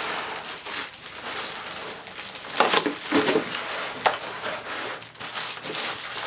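Clear plastic wrapping crinkling and rustling as a bagged machine is pulled out of its box, with moulded pulp packaging blocks shifting and knocking against cardboard. The crackling comes in irregular handling noises, louder around three and four seconds in.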